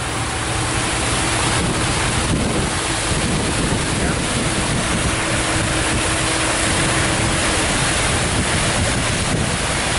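Waterfall rushing: a loud, steady noise of falling white water, with a faint steady hum underneath that stops about eight seconds in.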